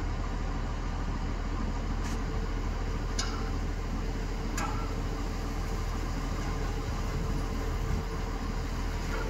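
Fire truck's engine running steadily with a low rumble, powering the raised aerial ladder; a faint steady whine joins about two seconds in, and a few brief sharp high clicks or squeaks sound early on.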